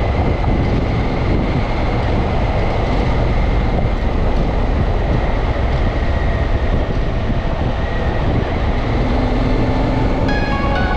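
Steady riding noise from a Honda Africa Twin's parallel-twin engine, with wind buffeting and tyre rumble on a dirt road. Music comes in near the end.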